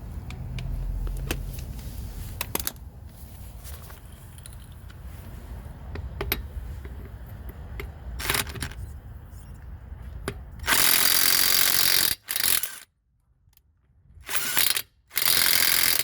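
Werktough impact wrench hammering: one long burst of about a second and a half, then a few short bursts with silence between. Before the bursts, a low rumble with scattered handling clicks.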